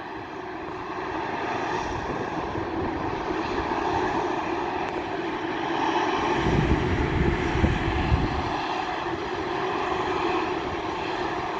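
Jet airliner engines running: a steady rumble with a held hum, slowly growing louder, and a deeper low rumble swelling for about two seconds past the middle.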